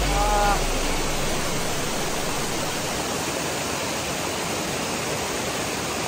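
Steady rush of a curtain waterfall pouring down a cliff face and a fast river churning over rocks below it. A man makes a brief vocal sound at the very start.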